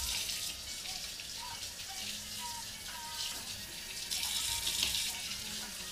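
Kitchen faucet running steadily, its stream splashing into the sink as raw pork and then hands are rinsed under it.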